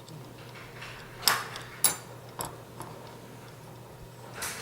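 A few sharp, small metallic clicks and taps, the loudest about a second in, as airsoft gearbox parts are handled and adjusted at the anti-reversal latch, then a short rustle near the end, over a faint steady hum.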